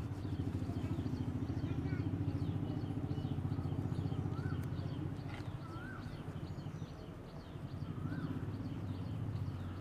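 Steady low drone of an engine running at idle, with a few faint short chirps above it.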